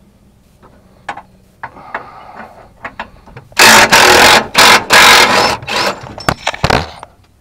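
Ryobi 1/2-inch cordless impact wrench hammering in several loud bursts from about halfway through, loosening the bolts of a bumper mounting bracket. Light clicks and scraping from handling the tool come before it.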